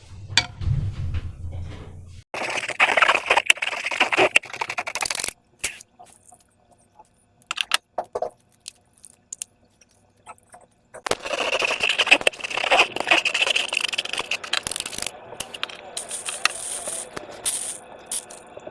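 Slime being squeezed and worked by hand, giving dense wet crackling and popping clicks in two long stretches, with scattered single snaps between them.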